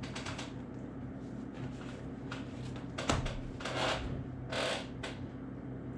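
A few short rustles and light knocks of the typing-lesson book being handled, its pages turned, over a faint steady hum.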